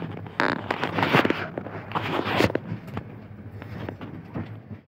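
Irregular rustling, knocks and scrapes of a person moving and handling things in a passenger train coach, over a steady low hum; the noise thins out after about three seconds.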